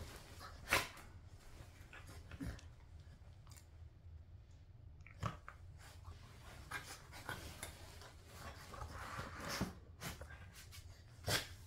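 A puppy biting and mouthing a hanging plush flamingo chew toy: scattered sharp clacks and crunches of teeth on the toy over faint rustling of bedding. The loudest snap comes just under a second in, and another comes near the end.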